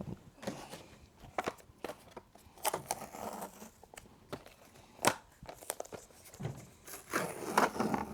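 Hands working on an opened fencing reel and its spring: scattered small clicks and taps of parts being handled, busier near the end.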